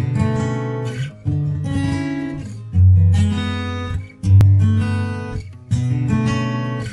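Intro music of strummed guitar: five chords in turn, each held a little over a second.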